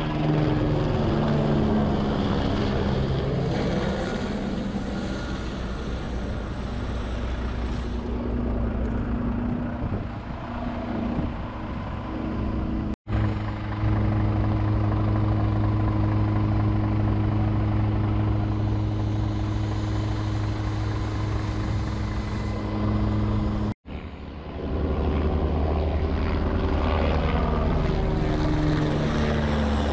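Firefighting helicopter flying low overhead, a loud steady rotor and engine drone whose pitch shifts as it passes. The sound cuts out abruptly twice for an instant.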